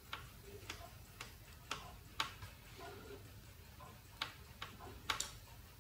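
Faint light ticks, roughly two a second and some louder than others, over a low steady hum.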